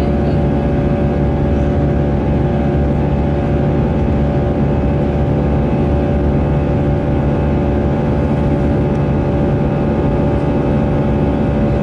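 Jet airliner cabin noise from inside the cabin: the engines' steady drone with several constant whining tones over a low rumble.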